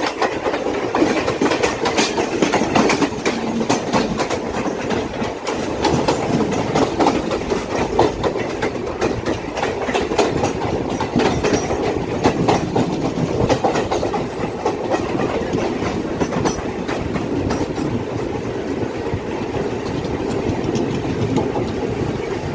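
Passenger trains running at speed, a steady rolling rumble with wheels clacking repeatedly over the rail joints.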